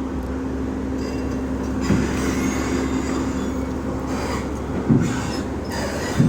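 Komatsu crawler excavator's diesel engine running steadily as the machine drives off its trailer, with the steel tracks clanking and squealing a few times, about two, five and six seconds in.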